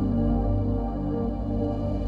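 Ambient instrumental music with sustained, steady low tones.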